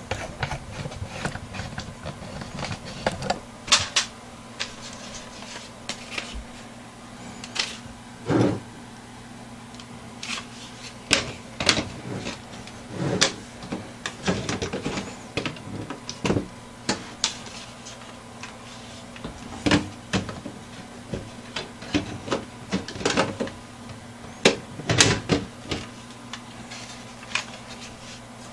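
Irregular clicks and knocks of desktop computer parts being handled, plastic and metal tapping and snapping, over a steady low hum.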